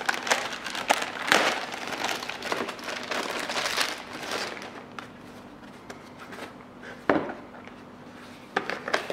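Clear plastic bag crinkling as foam winglets are pulled out of it, busiest in the first four seconds and thinning to light handling noise, with one sharp click about seven seconds in.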